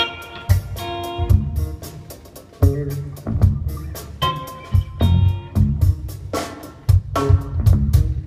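Live band of electric guitar, electric bass and drum kit playing together, the guitar playing ringing lead phrases over drum hits and cymbals.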